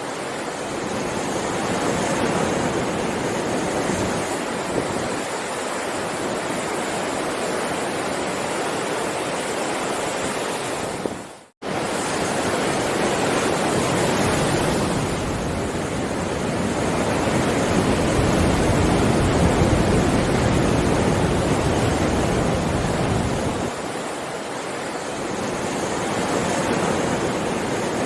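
Heavy ocean surf: a continuous wash of breaking waves that swells and ebbs over several seconds. Just past the middle, the sound cuts out abruptly for a split second and then resumes.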